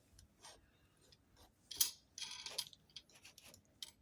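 Small metal parts handled on a workbench: a few light clicks, a sharper clink, then a short metallic rattle and scrape about halfway through.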